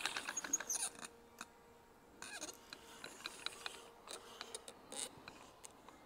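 Rope running over an improvised carved wooden pulley system as a log is hoisted: a quick run of small clicks and creaks in the first second, then scattered single clicks.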